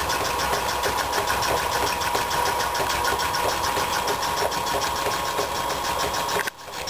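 Circa-1923 Brunner belt-driven air compressor, turned by its Westinghouse electric motor through a flat belt, running steadily and pumping up pressure with a rapid, even pulse of its strokes; nice and quiet. The sound drops abruptly in level near the end.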